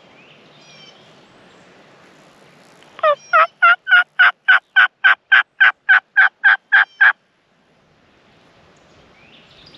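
A hunter's turkey call sounding a loud run of about fourteen hen-like yelps, evenly spaced at roughly three and a half a second, starting about three seconds in: calling to make a distant gobbler answer.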